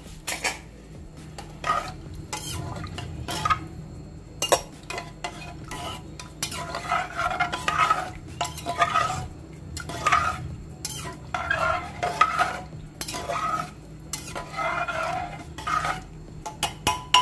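A long metal spoon stirring rice, water and onions in a pressure cooker pot, sloshing and scraping against the pot in repeated strokes, with a few sharp clinks of metal on metal.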